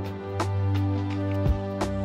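Background music: soft instrumental with sustained held notes and a couple of light percussive hits.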